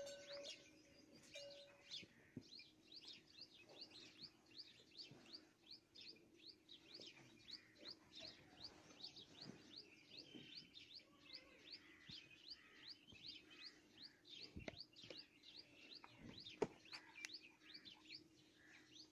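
Faint, steady chirping of a small bird, about three short rising chirps a second, over a low steady hum. A couple of sharp knocks near the end.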